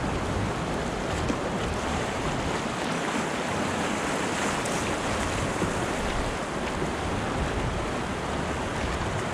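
Steady rushing of shallow river rapids around a canoe running downstream.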